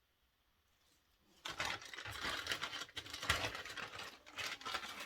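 Close, dense rustling and scraping of hands handling small plastic parts, starting about a second and a half in after near silence.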